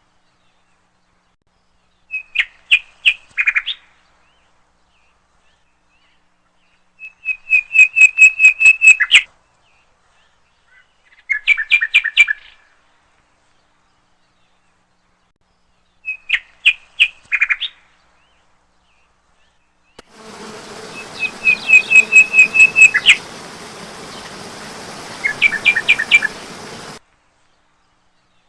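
A songbird singing short phrases of quick repeated notes, about six phrases with a few seconds of silence between them. From about two-thirds of the way in, a steady hiss lies under the song and then stops abruptly.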